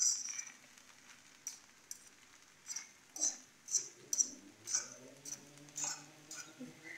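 A fork stirring and tossing vegetable rice in a frying pan, its tines clicking and scraping against the pan about twice a second.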